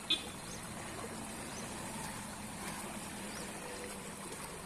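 Shallow stream flowing: a steady, even rush of water.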